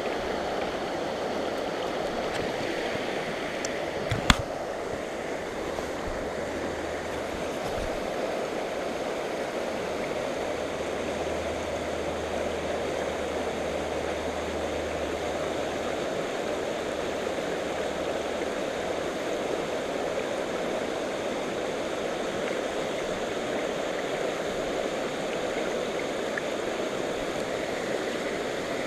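Shallow creek riffle running over stones: a steady, unbroken rush of moving water. A single sharp knock sounds about four seconds in.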